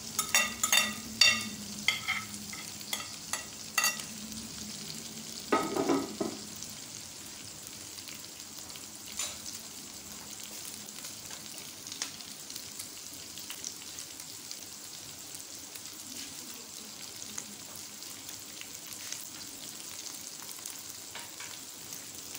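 A metal spoon scrapes and clicks against a plate and wok as shredded boiled chicken is tipped into the hot oil, with a louder knock about six seconds in. After that the chicken fries in a little oil in the wok: a quiet steady sizzle with occasional small pops.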